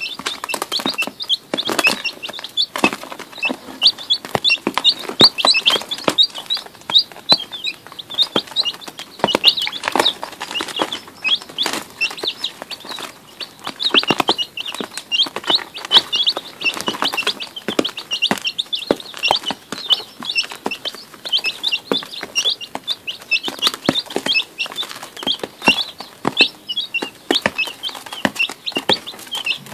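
A brood of day-old chicks peeping continuously, many short high chirps overlapping. Frequent sharp taps run through it, from beaks pecking at crumble feed in a dish.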